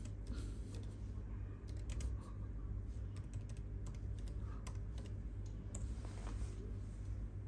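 Scattered, irregular light clicks and taps, over a steady low hum.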